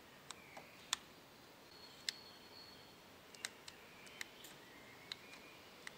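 Faint, irregular small plastic clicks, about nine in all, from a 2007 Kawasaki Versys 650's indicator switch being flicked and its cancel button pushed. The switch is not engaging, blocked by foam spacer discs fitted inside it for self-cancelling, which the owner thinks are a little too fat.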